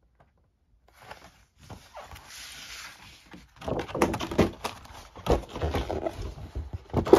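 A stiff, brand-new folding laminated game map being handled and pressed flat on a table: rustling, then a run of sharp crackles and knocks from about three and a half seconds in.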